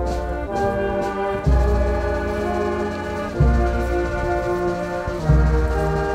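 Slow brass music: long held chords, with a new deep bass note about every two seconds.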